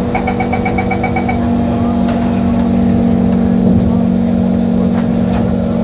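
Singapore MRT train's door-closing warning: a rapid run of about nine short beeps in the first second and a half, over the steady electric hum of the carriage.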